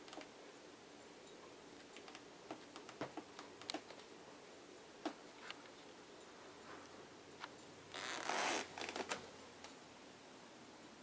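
Soft clicks and rustles of a cat nosing and rubbing against the camera at close range, with one louder brushing rustle lasting under a second about eight seconds in.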